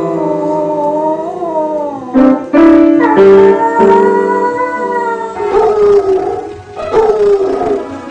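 A dog howling along to instrumental music, its howl wavering up and down in pitch over the held notes of the accompaniment.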